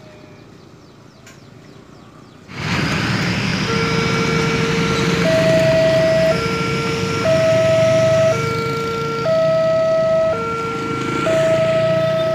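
Railway level-crossing warning alarm sounding two electronic tones, low and high, alternating about once a second. It starts a few seconds in and signals that a train is approaching and the barrier is about to come down. Under it, about two and a half seconds in, louder engine and road noise from passing motorcycles begins.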